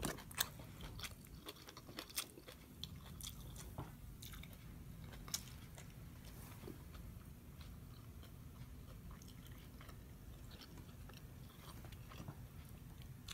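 A person chewing a mouthful of juicy barbecue pork rib close to the microphone: soft wet chewing with scattered mouth clicks, busier in the first half and sparser later.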